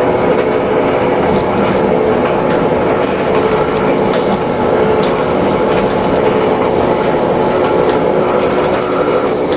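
Lathe running with a steady hum while the tool cuts the pulley's groove, with a few faint ticks.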